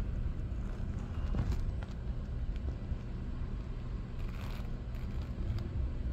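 Steady low rumble of background noise inside a large building, with a few faint clicks and taps scattered through it.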